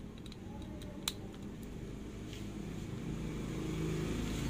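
Low engine rumble of background traffic that grows a little louder toward the end. Over it come a few light clicks of a screwdriver and the metal lamp housing being handled, the sharpest about a second in.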